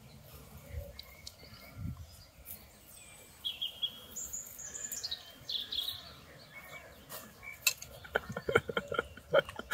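Small birds chirping, a few short high chirps and a falling whistle about midway. Near the end come a handful of small clicks and knocks.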